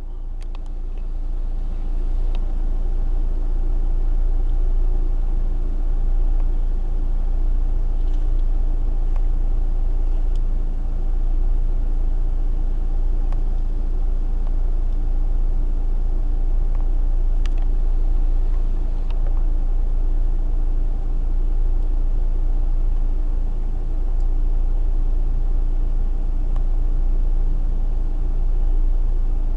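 A car engine idling: a steady low rumble with a constant hum, and a few faint clicks.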